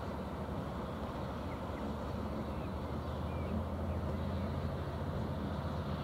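Several coupled Class 70 diesel locomotives running light, their GE PowerHaul V16 engines giving a steady low diesel rumble that grows somewhat stronger about halfway through.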